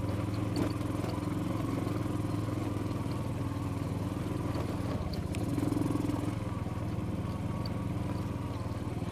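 Motor scooter engine running steadily at low speed over a rough stony track, its note swelling briefly a little past the middle.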